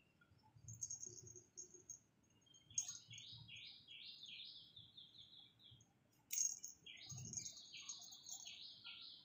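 Small songbirds chirping: high, thin chirps and runs of short falling notes, about three or four a second. One run starts about a third of the way in, and another starts two-thirds of the way in.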